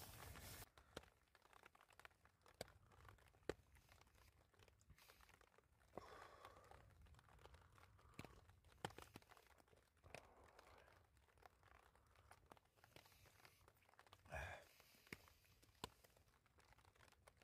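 Near silence, with faint scattered rustling and a few small clicks, and one short, louder noise about fourteen seconds in.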